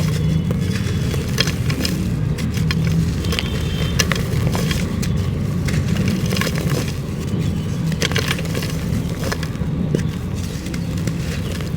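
Lumps of dirt being crumbled: irregular crisp crunches and crackles over a steady low rumble.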